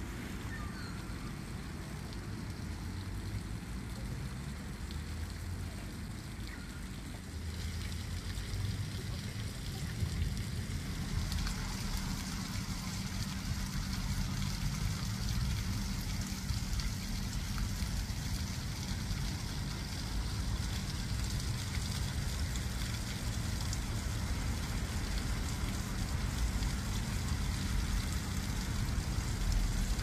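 Steady hiss and splash of running water, growing louder about 11 seconds in, over a constant low rumble.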